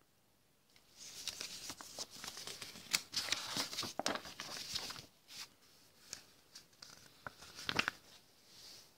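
Quiet rustling and scraping of cardboard and paper as a cardboard advent calendar is handled and a printed card is picked up, with scattered light clicks and one more short rustle near the end.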